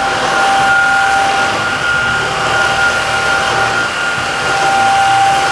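Greenote GSC50 cordless cyclonic stick vacuum running steadily with its motorised floor brush on a tiled floor: a rush of air under a steady high motor whine.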